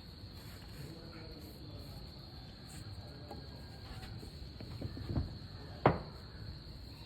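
Steady high-pitched insect buzz, with a single sharp knock about six seconds in.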